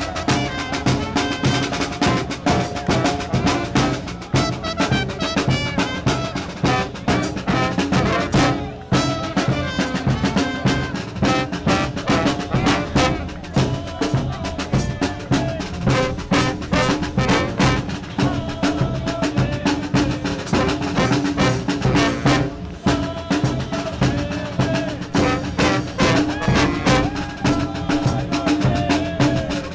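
Background music with a steady beat, with brief breaks about nine seconds in and again near twenty-three seconds.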